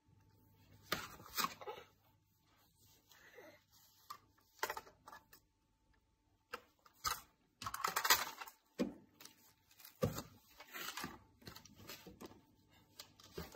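Irregular taps, clicks and rustles of a toddler handling plastic toys on a windowsill, the busiest stretch about eight seconds in.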